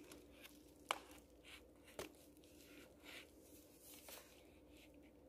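Faint snipping and paper rustle from a multi-tool's small scissors cutting into a paper mailer envelope, with two short sharp clicks about a second apart.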